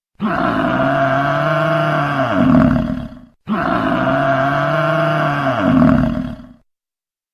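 Dinosaur roar sound effect played twice: two identical calls of about three seconds each with a short silence between, each swelling louder near its end before dying away.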